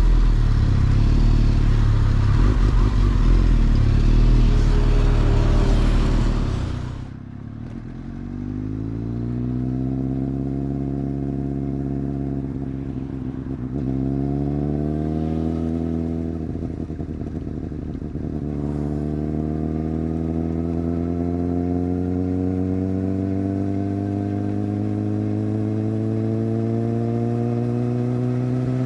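Heavy wind rush at speed for the first several seconds. Then a superbike's inline-four engine pulls through the gears: its pitch climbs, drops sharply at two upshifts, and then rises slowly and steadily.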